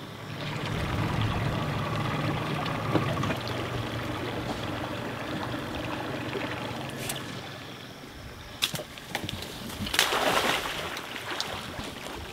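A steady low hum for most of the first eight seconds, then a dead mullet tossed into the water lands with a splash about ten seconds in, with a few lighter splashes after.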